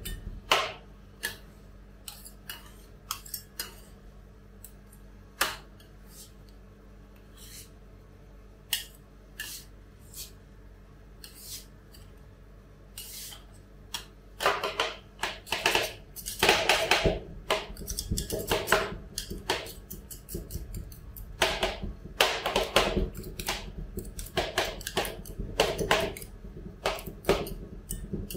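Two steel spatulas tapping, chopping and scraping on a frozen steel cold plate as banana is chopped into a rolled ice cream base. Scattered taps at first, then about halfway through quick runs of clatter and scraping.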